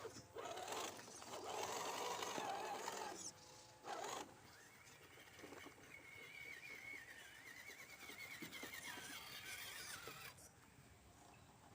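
Faint whine of an RC crawler's small electric motor and gears, rising and falling in pitch as the throttle changes. It stops about ten seconds in, after a short burst of noise near four seconds.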